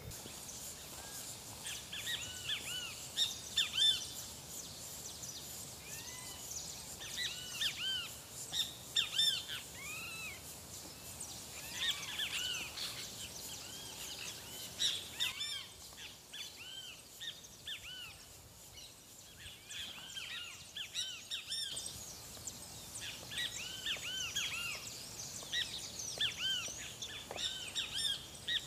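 Birds chirping in repeated clusters of short, arching calls, with a pause of several seconds about halfway through.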